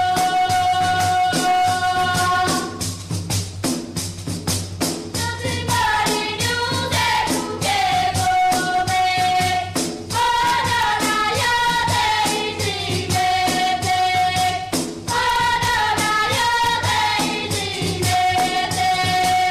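Women singing a traditional wedding song together over a drum beating a quick, steady rhythm. The voices hold a long note near the start and again near the end, with a moving melody in between.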